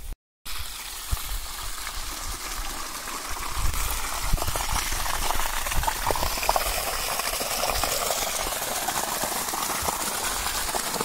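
Water from a solar pump gushing out of a white PVC outlet pipe and splashing onto wet ground: a steady rush that grows louder about four seconds in.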